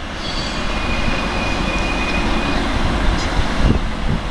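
FS D445 diesel-electric locomotive running under power as it hauls a freight train toward the listener, a steady engine noise with a faint thin high tone over it for the first couple of seconds. A short knock comes near the end.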